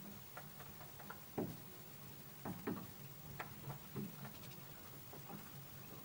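Goldfinch and bullfinches pecking and cracking sunflower seeds on a plastic feeder tray: irregular small clicks and taps, with a few louder knocks about one and a half, two and a half and three and a half seconds in, over a faint low hum.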